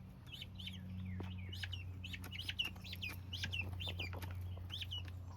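Young guinea fowl keets, about three weeks old, peeping over and over in short, high chirps, with a steady low hum underneath.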